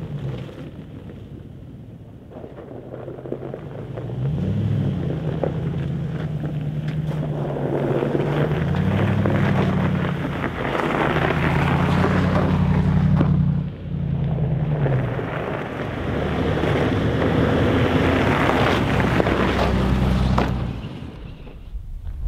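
A vehicle's engine running under changing throttle, its pitch rising and falling several times, over a steady rush of wind and tyre noise. The sound dips briefly partway through and fades near the end.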